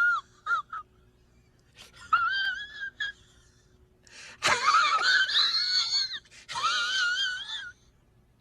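High-pitched, wavering, voice-like cries with a quavering vibrato: two short squeaks, then three longer cries, the longest about halfway through.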